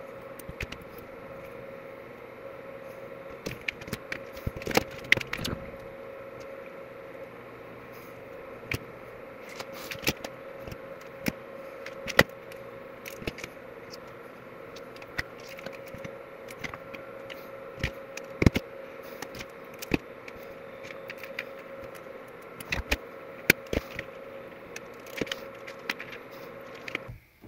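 Small clicks and clinks of alligator clips, test leads and small hand tools being handled on a hard workbench, scattered irregularly over a steady background hum.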